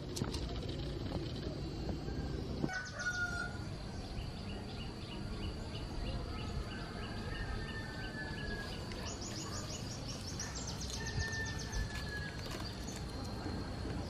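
A rooster crowing about three times, each call drawn out, over a steady high insect drone and other bird calls, including a rapid trill.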